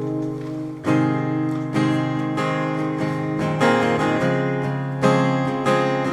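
Acoustic guitar strumming chords, struck about once a second, as the instrumental introduction to a worship song before the singing comes in.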